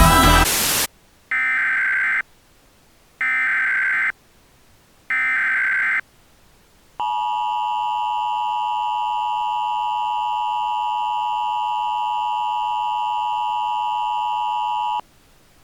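A music track cuts off within the first second. Then come three one-second bursts of Emergency Alert System SAME header data, about a second apart, followed by the EAS two-tone attention signal (853 and 960 Hz sounded together), held steady for about eight seconds and cutting off suddenly.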